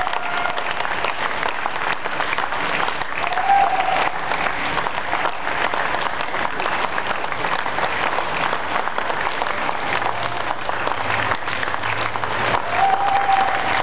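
A crowd applauding steadily, dense hand-clapping throughout, with a couple of short calls rising above it about three and a half seconds in and near the end.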